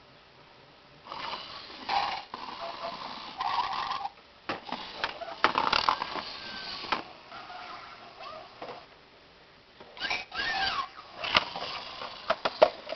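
Zhu Zhu Pets toy hamster running through plastic tubes: its small motor whirs in stop-start bursts, mixed with short electronic squeaks and chirps. A quick run of plastic clicks and knocks comes near the end.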